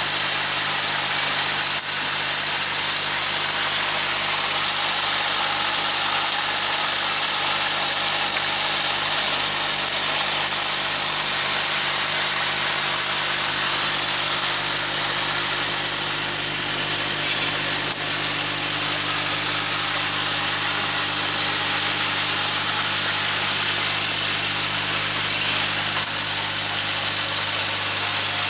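MK1040 centerless grinder running steadily, an even machine hum under a constant hiss, with a faint tick about every eight seconds.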